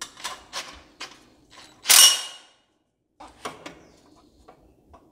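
Stainless steel turbo exhaust piping knocking and clinking against its fittings as it is handled into place, with one loud ringing metallic clang about two seconds in. Lighter clicks and taps follow near the end.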